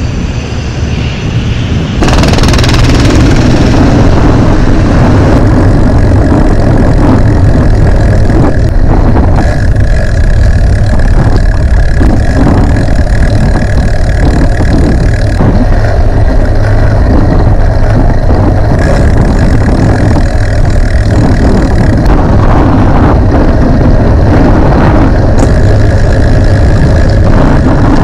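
Wind rumbling on a handlebar-mounted camera's microphone as the bicycle rides along, with road noise under it. It is loud and steady, and it jumps louder about two seconds in.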